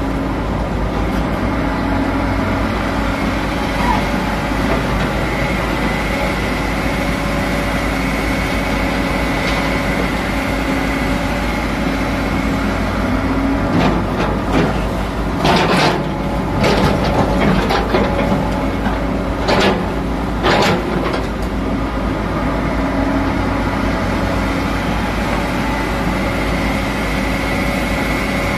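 Komatsu hydraulic excavator's diesel engine running steadily under working load, with a thin high whine near the start and again near the end. Roughly halfway through comes a run of sharp knocks and rattles as the machine swings and handles rock.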